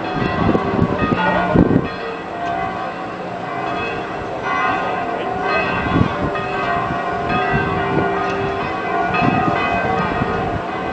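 Several church bells ringing together from the top of a bell tower: many overlapping, long-ringing tones, renewed by heavy strikes every few seconds.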